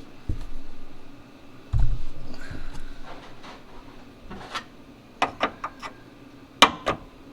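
Hands working on plastic parts around a car's washer fluid pump: two dull knocks, then a run of sharp plastic clicks, the loudest near the end.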